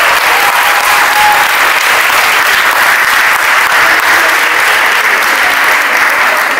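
Audience applauding steadily at the end of a dance performance.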